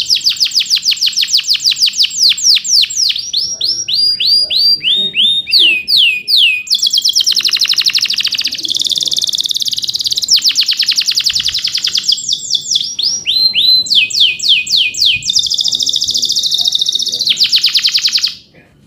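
Male domestic canary singing: long, very fast trills (rolls) alternating with series of slower, falling whistled notes, the song stopping suddenly near the end.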